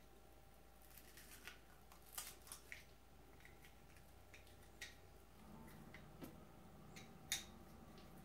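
Faint, scattered clicks and snips of a hand-held strawberry huller gripping and pulling the hulls out of strawberries, with the sharpest click about seven seconds in.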